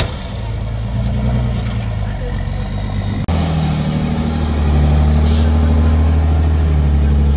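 DAC 665T 6x6 truck's diesel engine running under load as the truck crawls over rough dirt ground, a steady deep note that grows louder about five seconds in. A short hiss a little after five seconds.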